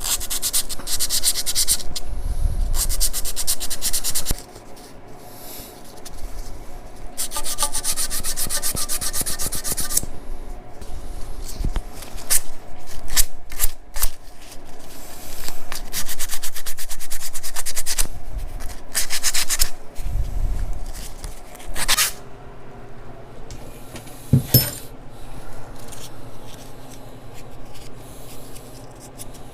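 Sandpaper rubbed back and forth by hand over the metal mating surface of a turbocharger housing, in repeated bursts of quick strokes with short pauses between them. There are a couple of sharp knocks from the part being handled in the second half.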